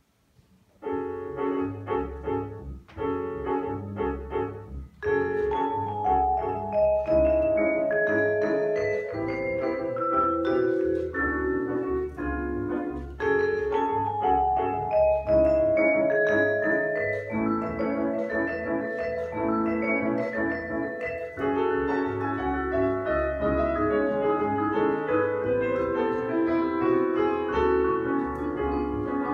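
Vibraphone, with double bass and drum kit accompanying, opening the first movement of a vibraphone concerto. It starts about a second in with a few short, separated chords, then plays on in a continuous melodic line over a low bass part.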